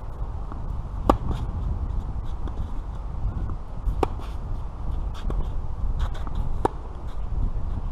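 Tennis rally: rackets hitting the ball, three sharp hits about a second in, about four seconds in and near the end, with fainter hits in between, over a steady low rumble.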